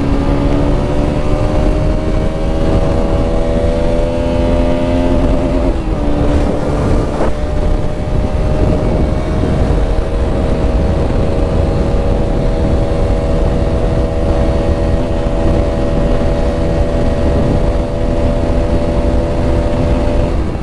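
Single-cylinder engine of a Bajaj Pulsar RS200 motorcycle running with its exhaust opened up, a steady drone over a heavy low rumble. Its pitch shifts about five to seven seconds in, then holds steady again.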